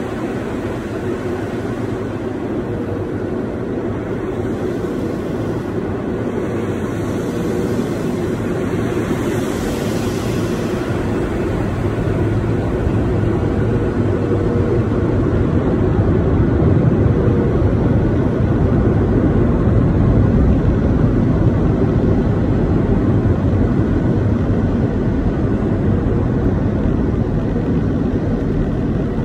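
Automatic car wash heard through the car roof and sunroof glass from inside the cabin: a steady rumble of spraying water and wash machinery that grows louder about halfway through.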